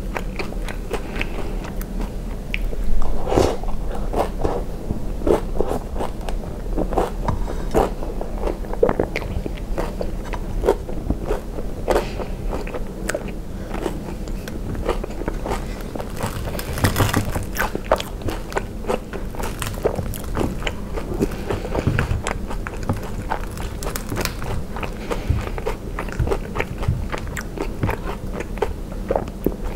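Close-miked eating sounds of fried ice cream with Nutella and whipped cream: biting and chewing with many small wet mouth clicks and smacks, and wooden fork and spoon working through the soft dessert. The loudest bites come about three seconds in and again about halfway through.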